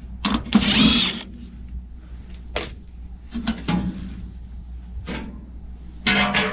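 Furnace's sheet-metal access cover being taken off: a loud metallic scrape about half a second in, then a few knocks and clicks as the panel is handled.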